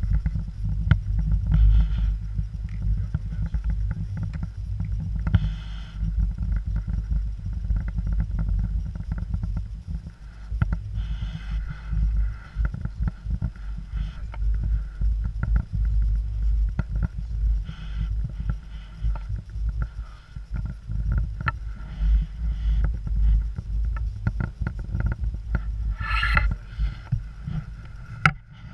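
Chairlift ride: a steady low rumble with many scattered clicks and creaks, and one louder, brief noise near the end.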